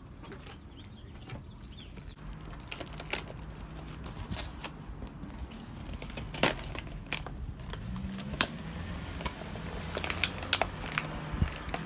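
Plastic toy packaging being handled and opened: scattered sharp clicks and crinkles, irregular and unhurried.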